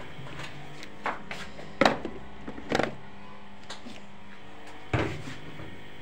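A few sharp knocks and clicks, the loudest about two and three seconds in and another about five seconds in, over a steady low hum.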